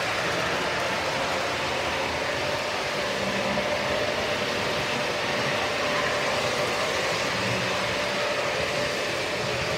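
O scale model train running past on its track: a steady rumble of wheels on the rails with a faint, even hum.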